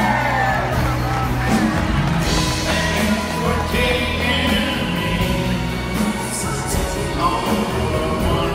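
Live band playing a slow ballad, with a male singer crooning over it into a handheld microphone.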